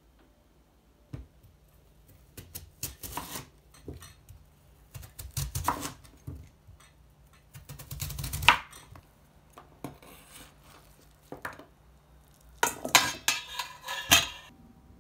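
Kitchen knife chopping daikon radish on a wooden cutting board, in uneven groups of knocks. Near the end comes a quick clatter as the radish cubes are pushed off with the knife blade into a stainless steel bowl.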